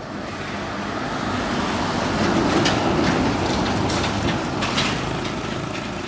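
Heavy fuel tanker truck driving past on a road. Its engine and tyre noise swells to a peak about three seconds in, then fades.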